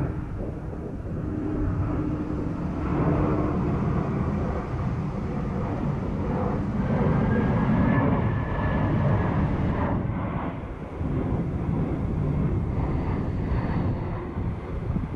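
Wind buffeting the microphone, a steady uneven rumble, with a fainter engine-like drone mixed in; a faint whine rises and falls around the middle.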